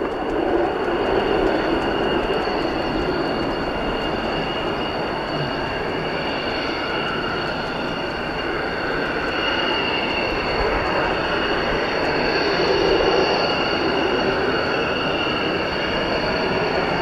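Hawker Hunter T7's single Rolls-Royce Avon turbojet at take-off power, a steady roar with a high whine on top, as the jet lifts off the runway and climbs away.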